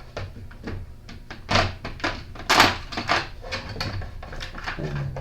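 Plastic bit-set case and driver bits being handled: a run of sharp clicks and knocks, two of them louder, as the case is opened and bits are taken out.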